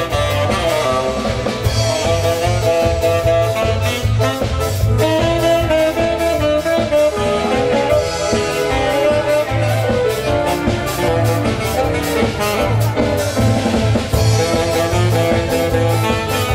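Live mulatós dance band playing upbeat Hungarian party music, with saxophone over drum kit keeping a steady dance beat.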